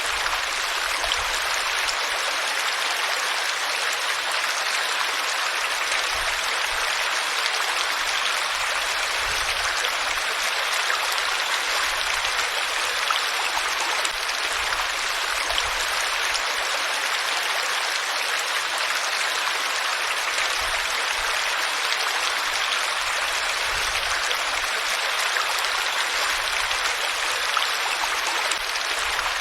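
Flowing water, like a stream, running steadily as an even, unbroken hiss.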